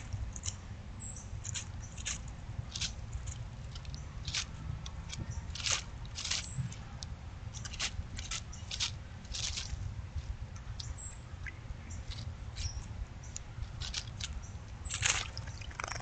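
Short, sharp ticks and chips, about two a second at uneven intervals, from a male northern cardinal on wet leaf litter, over a steady low rumble.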